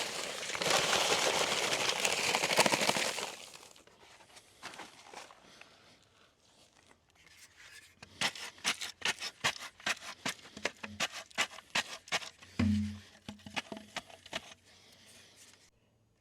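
Paper bag of concrete mix being handled, crumpling and tearing loudly for about three seconds; the mix inside has got wet and partly set. From about eight seconds in comes a quick run of sharp taps and knocks, several a second, that stops shortly before the end.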